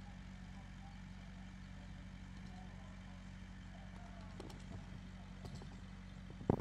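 Steady low engine hum, with a few faint knocks and one sharp thump near the end.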